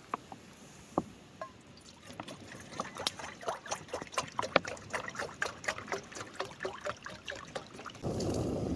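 Water poured from a bottle into a pot, glugging and trickling in a quickening run of splashes, to be boiled. Near the end a steady rushing sound starts suddenly: a gas stove burner lit under the pot.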